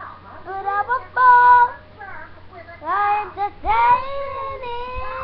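A child singing solo, holding long drawn-out notes in several short phrases; a note rises about two-thirds of the way in and is held to the end.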